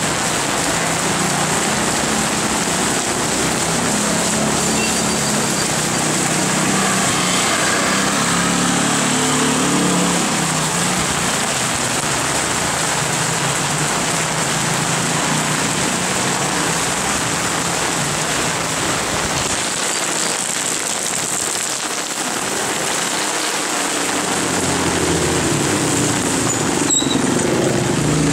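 Heavy rain falling steadily on a wet street, a constant hiss, with a low hum coming and going underneath.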